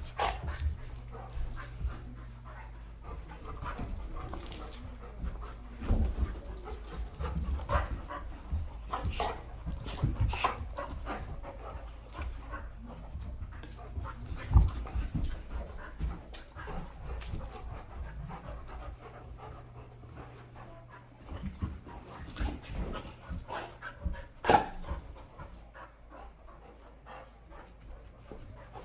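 Two dogs play-fighting: panting, with irregular scuffles and knocks from their paws and bodies.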